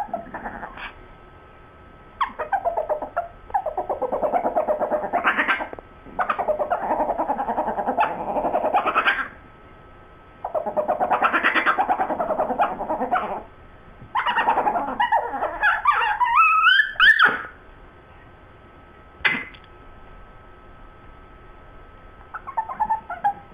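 Two chihuahuas growling at each other over a bone, in rough rumbling bouts of a few seconds each. Higher, wavering whine-like calls break in about two-thirds of the way through and again near the end.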